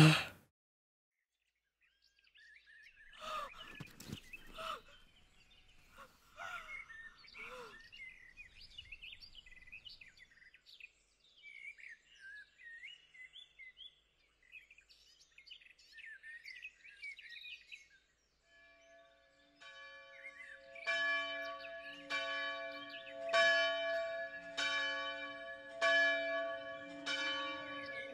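Faint bird chirps and twitters, then about two-thirds of the way through a church bell starts ringing in quick, evenly spaced strikes, about one and a half a second, growing louder.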